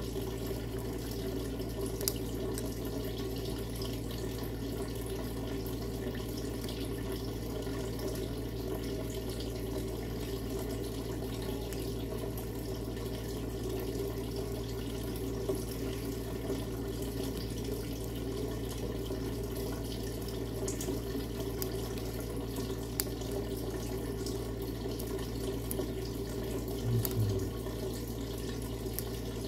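Steady rushing background noise like running water, over a low hum, with a few faint clicks and a short soft knock near the end as a small plastic earphone is handled.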